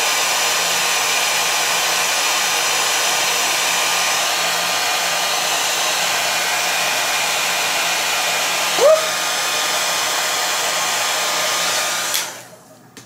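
Handheld blow dryer running steadily on a warm setting, then switching off and winding down near the end. A short rising tone cuts through about nine seconds in.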